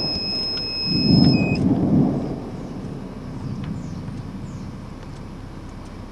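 Low rumble of thunder swelling about a second in and then fading. A steady high electronic tone sounds over it and stops abruptly about a second and a half in.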